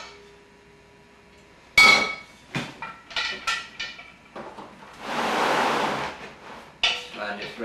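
An aluminum pressure cooker's lid being taken off and set down: one loud metallic clank with ringing about two seconds in, then several lighter metal clinks and rattles. About five seconds in comes a rush of noise lasting about a second, followed by a few more clinks.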